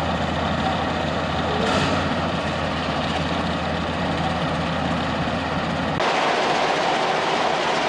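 Baldwin diesel locomotive's engine running at idle, a steady low drone. About six seconds in the sound cuts to a louder, hissier rumble.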